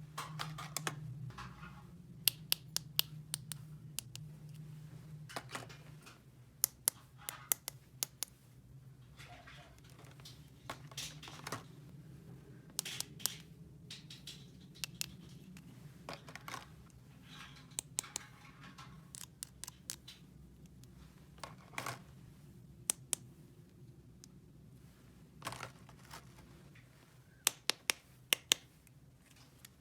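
Small plastic toy pieces being handled: scattered sharp clicks and snaps, some in quick clusters, with light scraping between them over a low steady hum.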